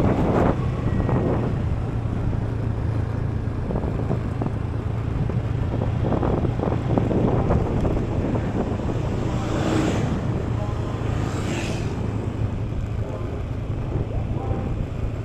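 Yamaha NMAX scooter's engine running steadily under way, with wind rushing over the microphone. Two brief swells of hissing noise come a little past the middle.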